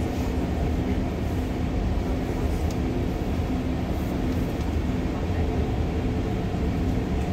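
Cabin running noise of an REM electric light-metro train in motion: a steady low rumble with a faint, on-and-off hum from the drive.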